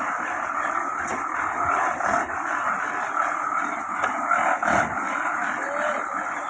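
Steady din of construction work, with a few sharp knocks scattered through it.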